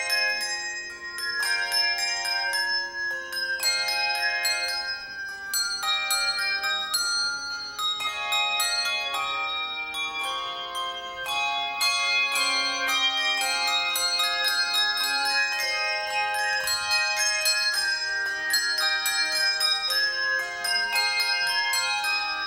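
Handbell choir ringing a piece of music: many bells struck in quick succession, melody and chords ringing on and overlapping without a break.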